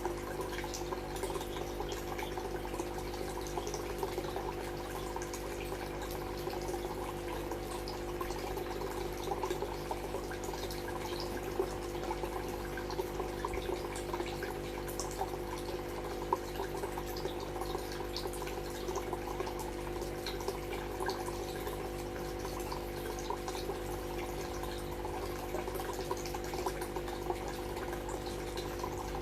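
Water trickling and dripping steadily into an aquarium, with a steady low hum underneath.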